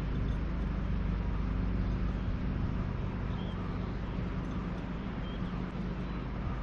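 A motor running with a steady low hum.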